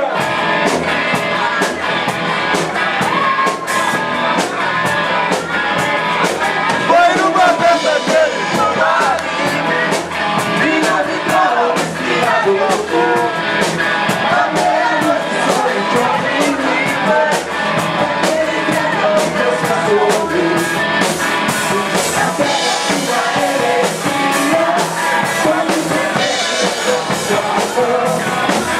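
Rock band playing live, with electric guitar, drum kit and singing, loud and steady throughout.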